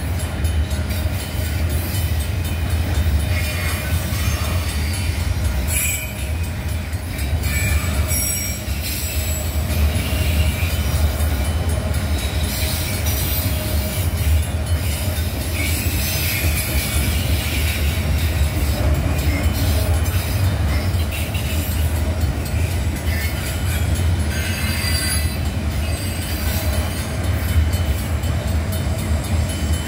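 CSX freight train of autorack cars rolling past at a grade crossing: a steady low rumble of wheels on rail, with wheel squeals coming and going.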